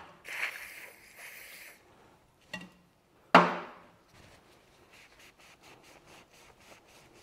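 Short hiss of carburettor cleaner sprayed from an aerosol can into a small engine's float bowl, then a sharp knock, followed by soft repeated rubbing of a rag wiping on a metal bench.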